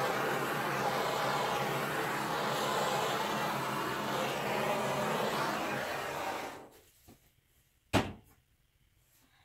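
Handheld gas torch flame hissing steadily as it is passed over the wet acrylic paint to pop surface bubbles, cutting off about six and a half seconds in. About a second and a half later comes a single sharp knock.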